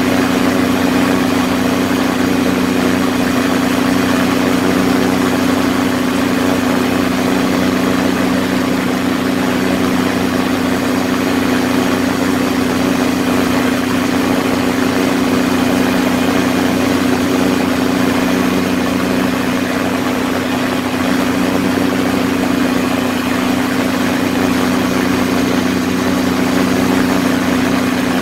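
Quicksilver ultralight's two-stroke engine and propeller running steadily in cruise flight, heard from the open cockpit as a constant drone over rushing air.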